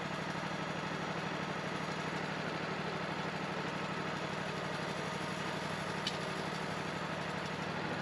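Wood-Mizer LT40 sawmill's engine idling steadily, with a single light click about six seconds in.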